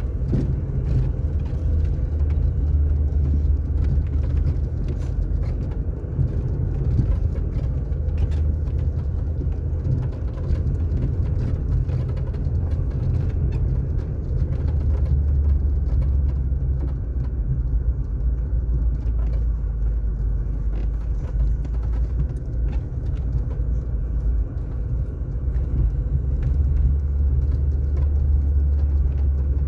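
Car driving steadily on asphalt: a continuous low rumble of tyres and engine that stays even in level throughout.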